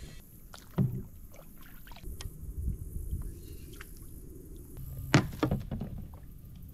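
Handling noise on a kayak on the water: a low steady rumble with scattered light ticks, and sharp knocks of gear against the boat, one about a second in and a louder one about five seconds in.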